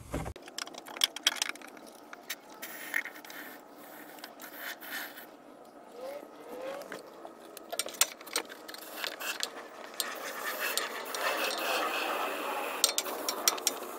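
Scattered clicks and scrapes of an aerosol can of expanding spray foam being handled at a hole in the vehicle frame. From about ten seconds in, a sputtering hiss rises as foam is shot through the can's straw into the hole.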